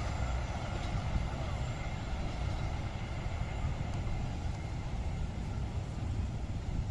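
Steady low rumble of passing vehicles, without any sudden events or clear tones.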